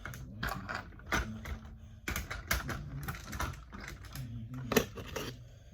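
Computer keyboard keys clicking in quick, irregular presses.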